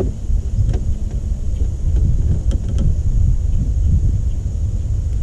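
Wind buffeting the camera microphone: a steady low rumble, with a few faint clicks.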